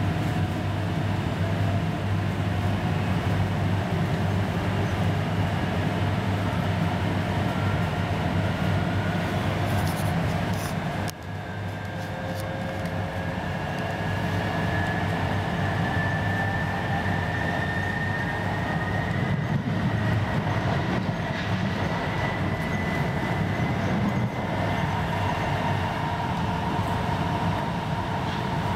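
Interior sound of a VR Class Sm2 electric commuter train running and picking up speed: a steady low rumble with a whine that slowly rises in pitch as the train gains speed. The sound drops briefly about eleven seconds in.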